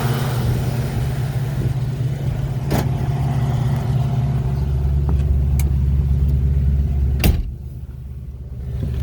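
A 1967 Ford Mustang Fastback driving under the power of its 302 HO V8, which breathes through stainless headers and a stainless exhaust. The low engine note runs steadily. Just after seven seconds there is a sharp click, then the sound drops away for about a second and a half before it picks up again.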